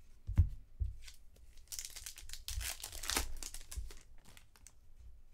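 Baseball trading cards being handled and slid off a stack, a rustling, crinkling scrape with soft low knocks of hands and cards against the table; the loudest knock comes about half a second in.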